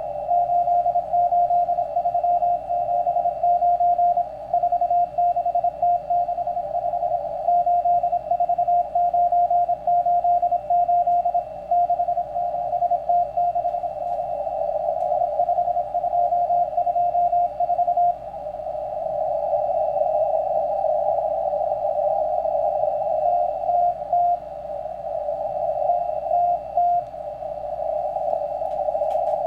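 Morse code from the Russian M12 number station heard over a shortwave receiver in CW mode: a single beep tone keyed rapidly in dots and dashes. About two-thirds of the way through, the keying gives way to a band of steady static hiss, with a few short bursts of keying breaking through near the end.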